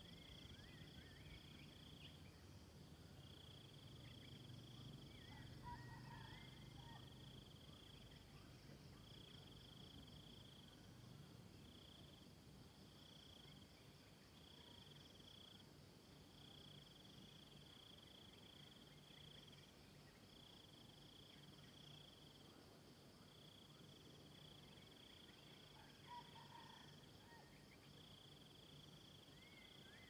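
Faint insects trilling: a high-pitched trill repeated in phrases of one to two seconds with short gaps, over a steadier, higher buzz. A few faint bird chirps come about six seconds in and again near the end.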